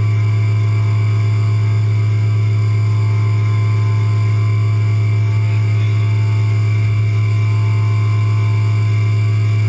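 CNC milling machine humming steadily inside its enclosure, a loud low hum with fainter steady higher tones, while the spindle waits without cutting.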